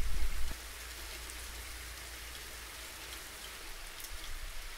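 Steady rain, an even hiss of falling drops, under a low rumble that drops away about half a second in.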